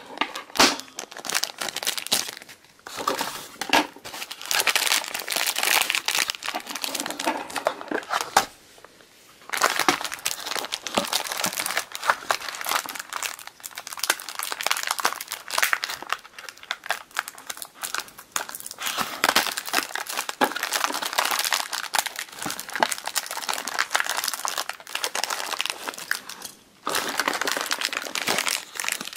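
Clear plastic bags crinkling and rustling almost continuously as hands open and handle them, sped up by fast-forwarding, with a few short breaks.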